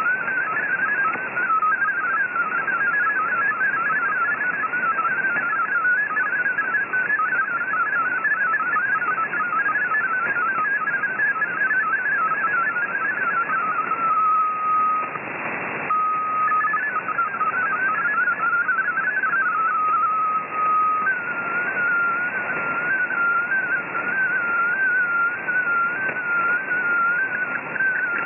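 Shortwave MFSK32 digital data signal: a fast, chirping warble of hopping tones over steady band hiss. Twice it settles on a single steady tone, and about three-quarters through it changes to a slower, smoothly wavering tone as an image transmission begins.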